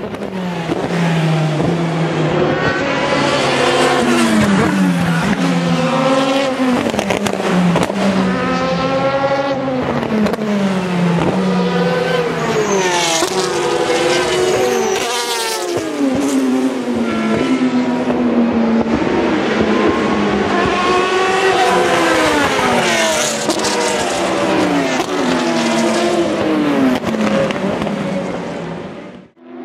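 Several endurance race cars (prototypes and GT cars) passing one after another at racing speed, their engine notes repeatedly sweeping down in pitch and overlapping.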